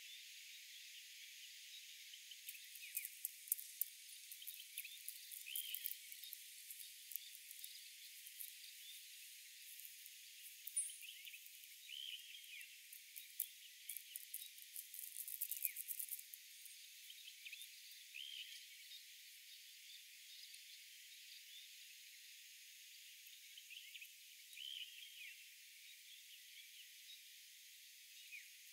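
Plastic seasoning sachets crinkling as they are torn open and emptied into a paper instant-noodle cup, a run of sharp crackles from about three to sixteen seconds in. Faint short chirps recur throughout over a thin steady hiss.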